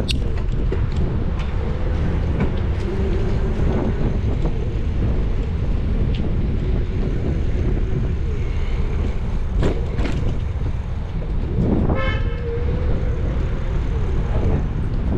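Steady low road rumble of a car driving along a busy city street, with a short vehicle horn toot about twelve seconds in.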